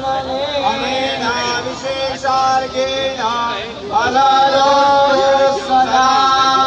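Male voice singing a Hindu devotional chant in long held notes, louder from about four seconds in.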